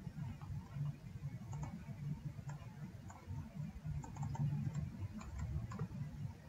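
Faint, scattered computer mouse clicks, several in quick succession between about four and six seconds in, over a low background rumble.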